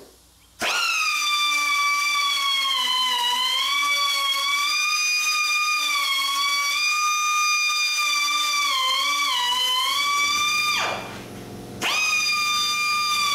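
High-speed rotary tool whining as it trims the edge of a fiberglass trunk lid, its pitch dipping and recovering as it bites into the material. It starts up just after the beginning, then near the end it spins down with a falling whine and starts up again a second later.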